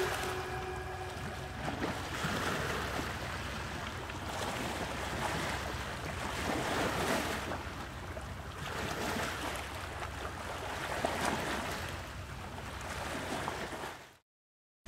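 Large waterfall rushing: a steady wash of falling-water noise that swells and eases every couple of seconds, over a faint low hum. It cuts off suddenly near the end.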